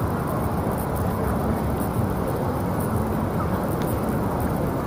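Steady city ambience: a constant low rumble of distant traffic with no distinct events.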